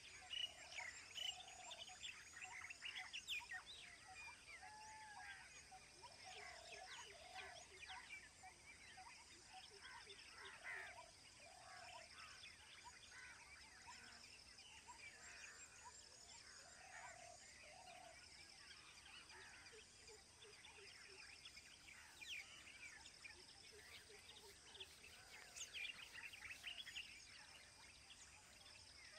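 Faint wild birdsong: several birds chirping and whistling, with a short mid-pitched note repeated every second or so in the first half. A steady, high pulsing trill runs underneath.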